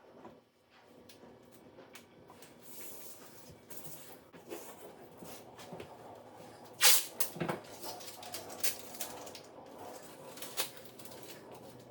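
Tape being unrolled and laid along a countertop-to-backsplash joint: scattered clicks and rustling handling noise, with one loud sharp burst about seven seconds in.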